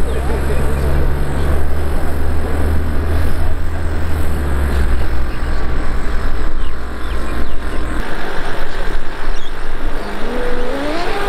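Small RC steam speedboat running at speed across the water, a loud steady rush from its steam plant, over a deep steady rumble that stops about eight seconds in.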